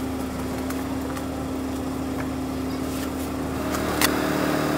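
A steady low machine hum with light clicks of wooden chopsticks against a plastic tub as pickled ginger is picked out. Near the end the hum changes and grows a little louder, and there is one sharp click.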